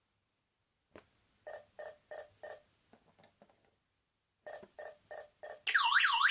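Home security alarm system in entry delay after being armed: a click, then two runs of four short beeps, then near the end its siren starts, a loud fast rising-and-falling warble, signalling an intrusion once the configured delay has run out.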